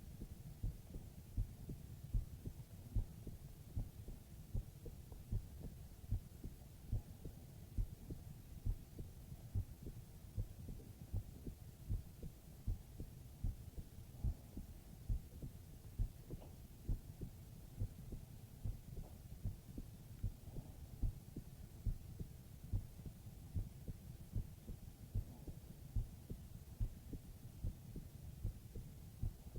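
Human heartbeat heard close up as if through the chest: steady low thumps, about one a second, over a faint low background.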